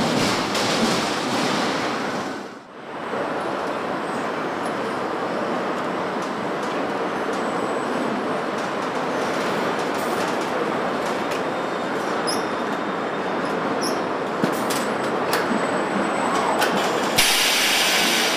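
Steady rolling noise of a moving train, with a brief drop about two and a half seconds in and a short burst of high hiss near the end.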